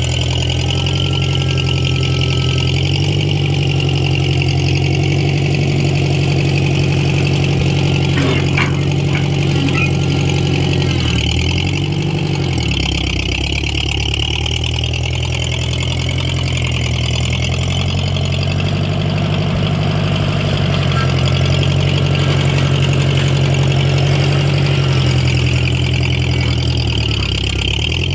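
Ford 8N tractor's four-cylinder engine running steadily, its speed sagging briefly near the middle and rising for a stretch later on. A few short metallic clanks come about a third of the way in.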